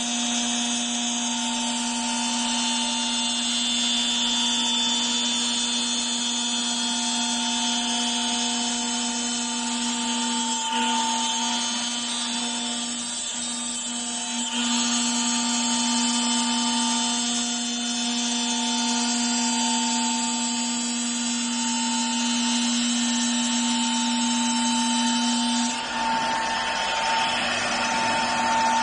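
CNC wood router's spindle running at speed while its bit routes an outline into a wooden board: a steady high whine over the hiss of cutting, dipping briefly a couple of times midway. Near the end the sound turns noisier.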